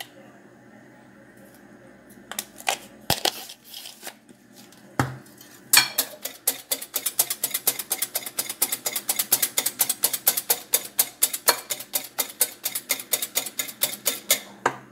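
Metal balloon whisk beating an egg mixture in a glass bowl: a few scattered knocks, then from about six seconds in quick, regular strokes of the wires clicking and swishing against the glass.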